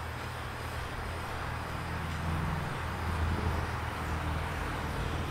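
Small hand torch burning steadily, its flame played over the pine bedside boards to char the wood, giving a continuous hiss over a low rumble that swells about two seconds in.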